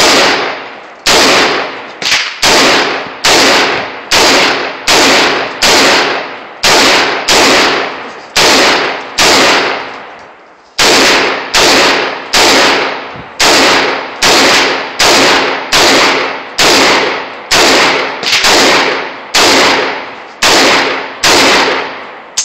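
Rifle fired rapidly in semi-automatic, about two loud shots a second, each trailing off, with one short pause about halfway through.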